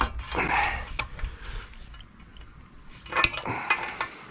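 Ratchet wrench clicking and steel clinking as the bolts of a Horsch seed drill's disc blade are worked loose, in a few sharp metallic clinks with scraping between, the loudest cluster about three seconds in.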